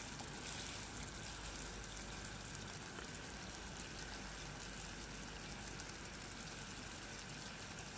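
Sugar, water and corn syrup boiling hard in a pot, a faint steady crackle of many small bubbles popping. The syrup is at the stage where it is ready to be worked for hard candy.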